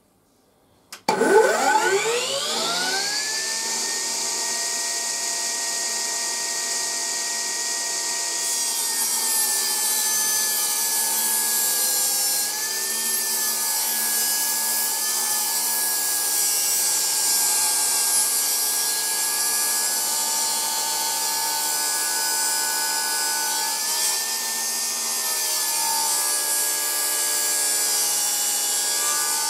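HiKOKI C3610DRJ cordless table saw on battery power, switched on about a second in, its whine rising to speed over a couple of seconds and then holding steady. From about eight seconds in the blade rips 18 mm fir along the grain, its pitch dipping slightly a few times under load.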